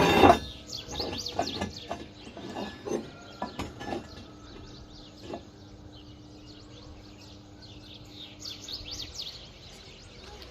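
Small birds chirping again and again. A loud burst comes right at the start, then a series of knocks and clicks over the first five seconds, and a low steady tone runs until about nine seconds in.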